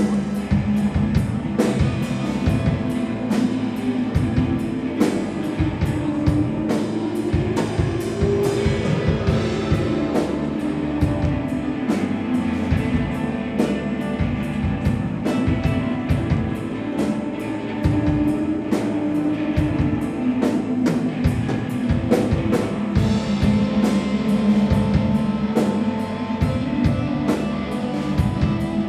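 Live instrumental rock band playing: electric guitars over a steady drum kit beat, with electronic keyboard.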